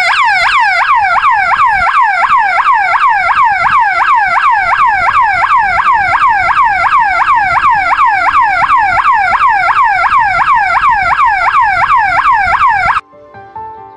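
12-volt alarm siren through a horn speaker, sounding a fast falling yelp that repeats about three times a second, set off by an object breaking the dual beam sensor's infrared beam. It cuts off suddenly near the end.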